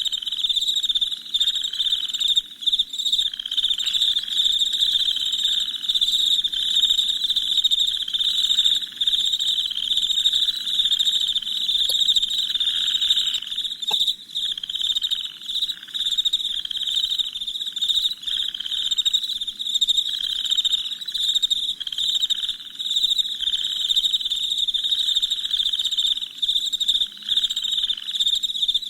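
Night chorus of crickets chirping continuously at a high pitch, with a softer, lower pulsing call repeating about once a second.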